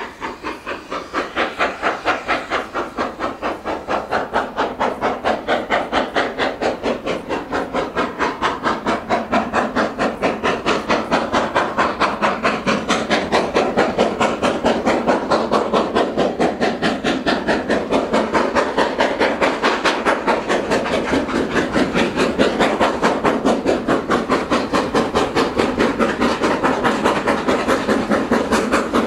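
GWR Manor class 4-6-0 steam locomotive 7827 Lydham Manor working a train, its exhaust beating fast and evenly from the chimney. It grows louder over the first few seconds as it approaches, then stays loud.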